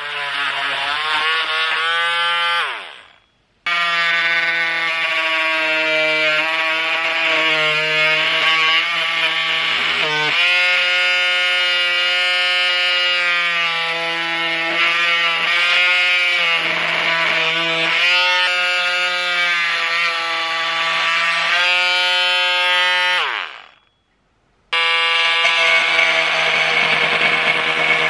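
Parkside 12 V cordless oscillating multi-tool buzzing as it saws and scrapes wood, its pitch sagging and recovering as the blade bites. It is switched off and winds down twice, about three seconds in and near the end, restarting a second or so later each time.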